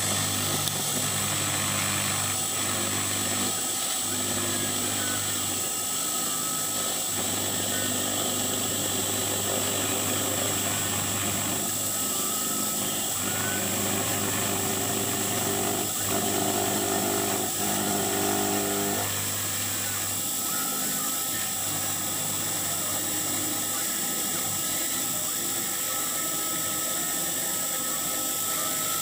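CNC2418 desktop router milling a circular hole in a plastic case with a 0.8 mm two-flute end mill, set to spindle S300 and feed F150 and cutting 0.3 mm deeper on each pass. The spindle runs with a steady high whine, and under it low motor hum tones start, stop and change every few seconds as the machine moves along the cut.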